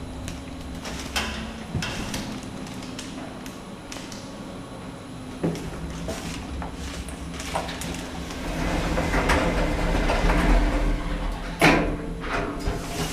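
Otis Gen2 lift running: a steady low hum with scattered clicks and knocks, a swelling rush of running noise from about eight to eleven seconds in, and a sharp knock near the end.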